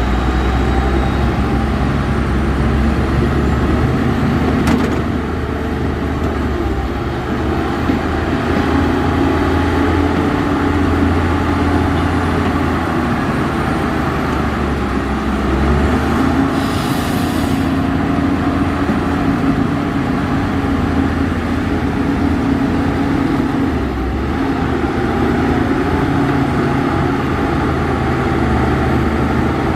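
Heavy diesel earthmoving machinery running, its engine note rising and falling with load. A short hiss sounds about seventeen seconds in.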